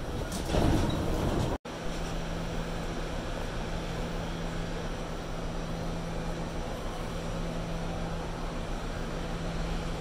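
New York subway car standing at a station with its doors open: a steady hum of the car's equipment with one steady low tone. In the first second and a half there is a louder rush of train noise that breaks off abruptly.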